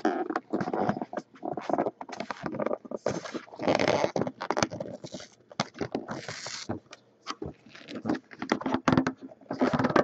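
A cardboard trading-card box handled close to the microphone: fingers scraping, tapping and rustling at it while trying to get it open, with a few longer hissing scrapes about a third of the way in and again past the middle.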